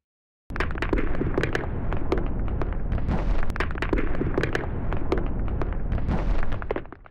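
Gunfire and explosion sound effect: a quick, irregular run of sharp cracks and bangs over a continuous low rumble, starting about half a second in and fading out near the end.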